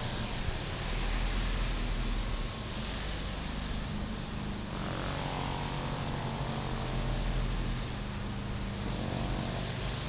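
Low wind rumble on a handheld phone's microphone over a steady hiss of outdoor street noise; the rumble swells twice.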